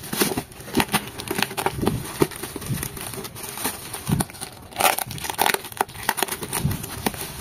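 Plastic courier bag and bubble wrap crinkling and tearing as a parcel is pulled open by hand, in uneven spurts of crackling rustle.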